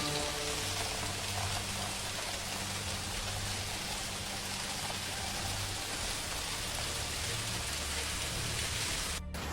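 Heavy rain falling steadily during a storm, as an even hiss with a low steady hum underneath; the sound breaks off briefly near the end.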